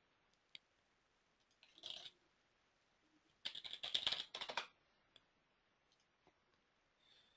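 Computer keyboard typing: a short cluster of keystrokes about two seconds in, then a quick, dense run of keystrokes a second and a half later, with a few isolated single clicks between.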